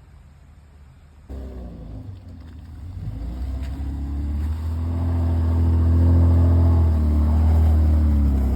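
Off-road vehicle's engine pulling hard under load, a low rumble that comes in suddenly about a second in and builds to its loudest over the second half.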